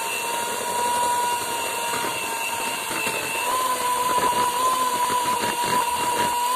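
Electric hand mixer running at a steady speed with a constant high hum, its beaters whipping creamed butter-and-sugar cake batter as egg yolks are added. Irregular light clicks of the beaters against the bowl come through the second half.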